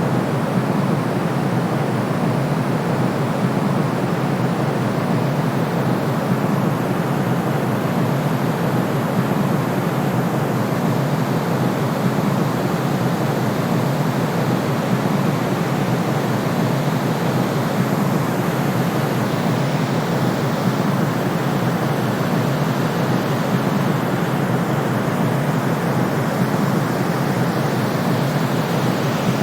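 Steady white noise for sleep: a constant, even rushing sound with no changes. It is weighted toward low and middle pitches, with softer treble and almost no deep bass.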